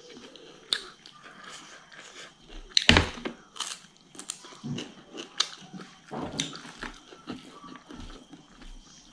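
Close-miked mouth sounds of a person eating by hand: chewing with irregular crunchy bites and wet clicks, the loudest crunch about three seconds in.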